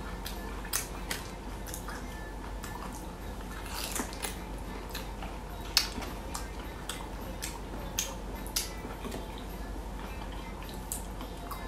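Plastic-gloved hands peeling the husk off boiled bamboo shoots, with bites being eaten. Irregular soft clicks, crinkles and mouth sounds run over a steady low hum, with a few sharper clicks near the middle.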